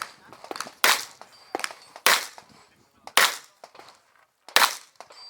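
Revolver shots fired in a steady string during a practical shooting stage, four loud shots spaced about a second or so apart, with fainter pops between them.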